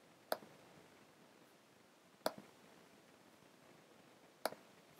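Three computer mouse clicks about two seconds apart, each a sharp press followed at once by a softer release, over faint room hiss.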